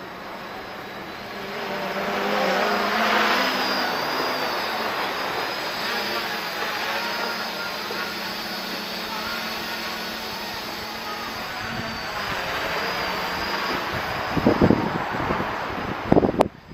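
Quadcopter's electric motors and propellers buzzing in flight, with the pitch wavering as the throttle changes; it grows louder about two seconds in as the craft comes closer. A few sharp thumps are heard near the end.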